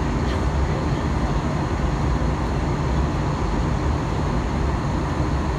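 Steady drone of engine and airflow noise inside the cabin of an Airbus A321-200 in flight, strongest in the low range with a faint steady hum.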